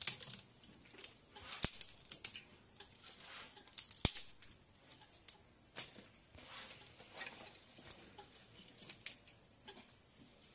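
Dry firewood sticks being broken and handled by hand: irregular crackling and rustling, with two sharp snaps, about one and a half and four seconds in.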